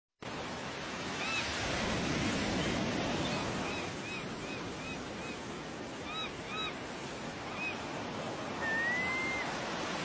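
Surf washing steadily on a shore, with a series of short high chirps through the middle and one longer rising whistle near the end.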